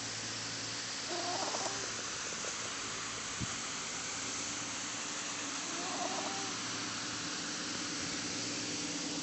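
Pomeranian snoring in its sleep: two short, squeaky, whistling snores, one about a second in and another about five seconds later, over a steady background hiss.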